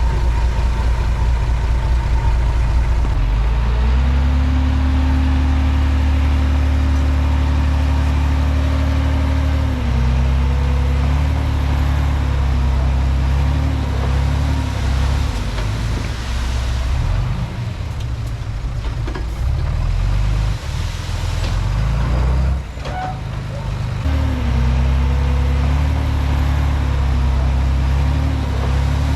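Komatsu D31P bulldozer's diesel engine running under load: it revs up about four seconds in and holds, eases off and wavers through the middle, drops briefly about two-thirds of the way through, then revs up again.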